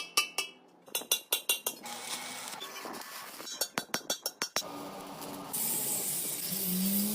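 Light metallic clinks and taps on steel parts, in two quick runs of several strikes, followed by a steady hiss near the end.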